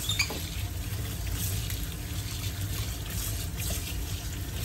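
Sink faucet running in a steady stream, the water splashing into the sink and over hands held under it.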